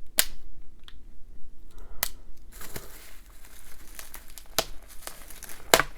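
A parcel's wrapping being cut and pulled open: plastic and paper packaging crinkling and tearing. Several sharp clicks and taps sound a second or two apart, the loudest near the end.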